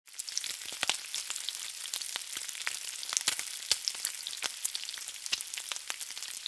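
Food sizzling as it fries in hot oil: a steady crackling hiss scattered with many small sharp pops.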